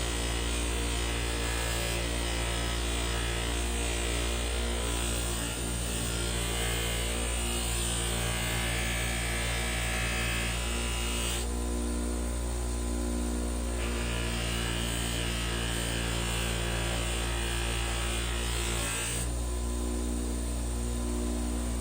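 Old bench grinder running steadily with a buffing wheel, a forged knife blade pressed against the wheel to polish it with buffing compound. The hiss of the blade on the wheel drops away twice, about halfway through and near the end, while the motor keeps running.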